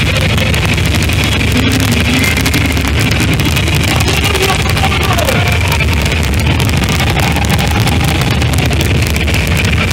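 Live rock band played loud, with an electric guitar solo over the rest of the band, heard as one dense, steady wall of sound. The guitar's bent notes glide up and down above it.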